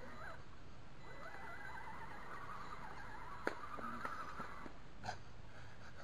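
Scale RC crawler's electric motor and gearbox whining, the pitch rising and falling as the throttle is worked, with a couple of sharp clicks about three and a half and five seconds in.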